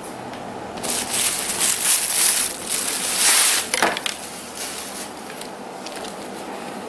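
Thin clear plastic bag crinkling and rustling as a folded T-shirt is pulled out of it, loudest from about one to four seconds in, then dying down to softer handling of the fabric.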